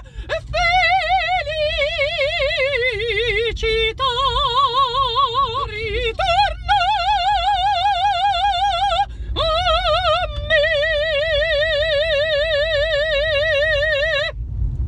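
A mezzo-soprano singing an operetta phrase unaccompanied, in full operatic voice with a wide, even vibrato. The phrase is sung as several held notes, the last one held for about four seconds before stopping near the end. A low rumble of the moving car runs underneath.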